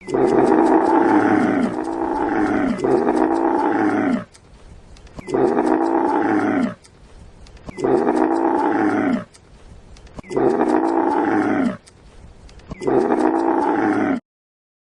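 An animal calling over and over in loud, pitched, slightly falling calls. The first call runs about four seconds and is broken twice, then four shorter calls follow about two and a half seconds apart.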